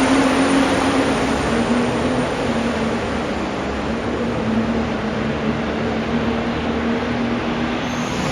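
An engine running steadily with a low hum, under a loud, even rush of noise.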